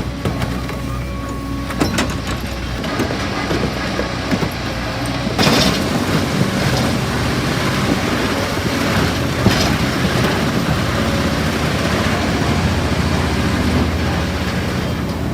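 Heavy stump-removal machinery running steadily under load, its diesel engine droning, with a few sharp cracks or knocks, the loudest about five and a half seconds in.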